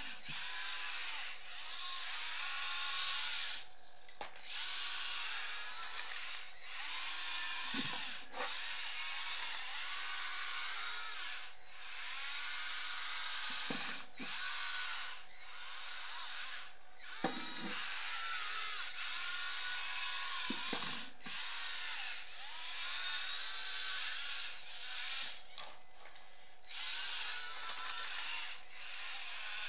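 Small electric drive motors and gearboxes of a radio-controlled Bruder skid steer loader whining in short bursts, the pitch rising and falling as it speeds up and slows. A few clunks sound in between.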